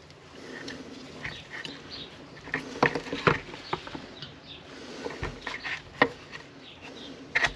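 Light, irregular clicks, taps and scrapes of small metal chainsaw engine parts being handled and worked loose on a workbench, as a part is being slid out of the engine.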